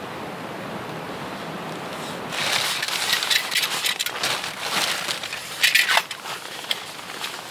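A steady, even hiss for the first two seconds. Then a black plastic trash-bag pack liner rustles and crinkles irregularly as gear is pulled out of the backpack.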